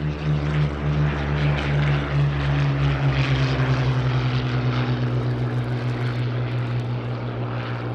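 Piston-engined WWII fighter's propeller engine running steadily, an even low throb with no clear rise or fall in pitch.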